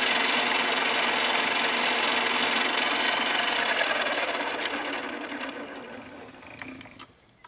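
Mini lathe running with its tool cutting 12L14 free-machining steel, then the motor is cut and the spindle winds down to a stop over about three seconds, with a few light clicks as it slows.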